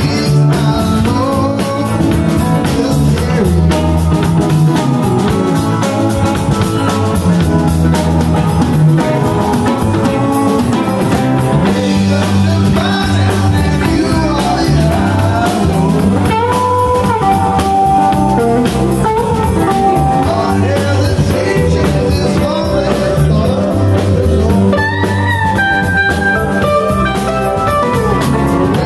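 Live band playing an instrumental passage on electric guitars, keyboard, bass and drum kit, with long held lead notes in the second half.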